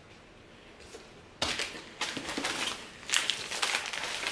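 Packaging rustling and crinkling as items are handled and pulled from a cardboard box, starting about a second and a half in.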